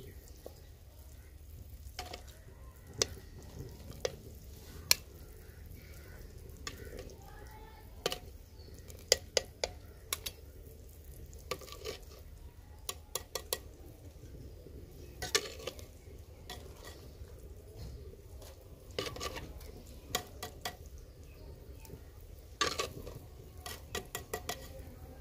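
Stainless steel tongs clicking and clinking against the rims of earthenware pots as boiled chicken pieces are lifted out of the broth, in irregular scattered clicks with a few louder clusters.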